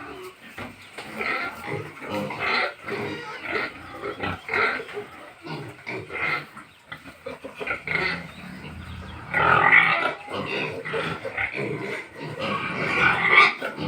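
Farm pigs calling in a quick, irregular run of short calls, several animals at once, with louder calls about nine to ten seconds in and again near the end.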